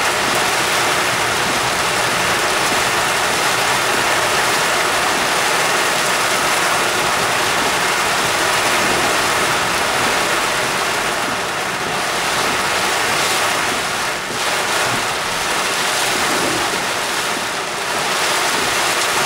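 Torrential rain falling on a moving car's roof and windscreen, heard from inside the cabin, mixed with the rush of tyres through flooded road water. A steady, loud noise with brief slight dips in level.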